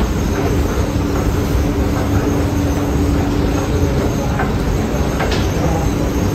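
Underground rail station ambience: a steady low rumble with a constant hum and a few faint clicks.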